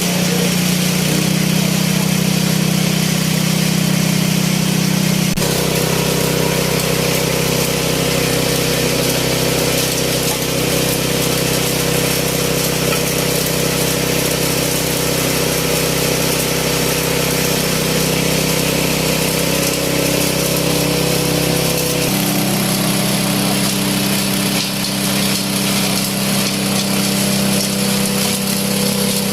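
K20 multifunction chopper-grinder running steadily while processing animal manure. Its drone changes note about five seconds in and changes back about twenty-two seconds in.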